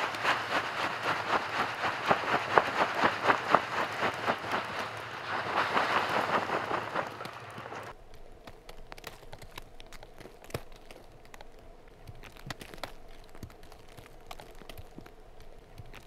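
Heavy snow being crunched and brushed off a buried tent's fly by hand: a busy run of scrapes and crunches that stops suddenly about eight seconds in. After that there is a much quieter stretch of faint, scattered ticks.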